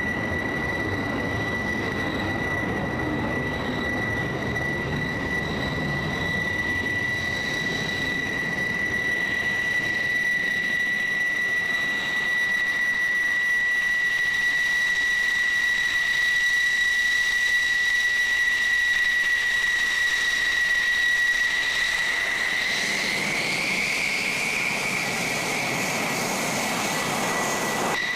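F-16 fighter jet's engine running with a steady high whine over a rushing roar; near the end the whine rises a little and the roar swells as the engine noise builds.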